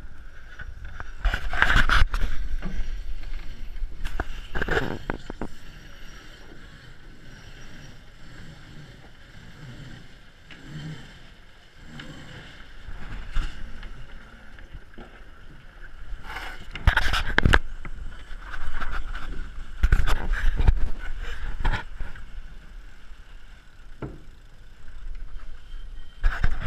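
Wind and water noise on a racing catamaran under sail: a steady low rumble of wind on the onboard camera's microphone and water rushing along the hulls, swelling into loud surges several times.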